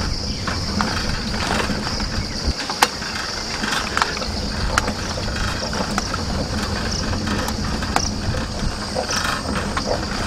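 Outdoor ambience with the microphone on the move: a constant low rumble with scattered clicks and knocks, under a steady high-pitched drone.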